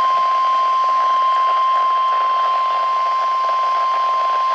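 NOAA Weather Radio 1050 Hz warning alarm tone, one steady, unbroken tone over a faint radio hiss, announcing a severe thunderstorm warning.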